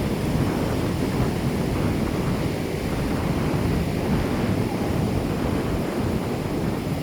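Surf washing onto the shore in a steady rush, with wind buffeting the microphone.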